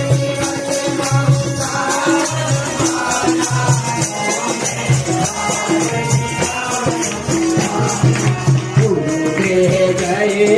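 Instrumental music from a Hindi devotional song, with a steady shaker-like rattle marking the beat over bass notes and a melody line.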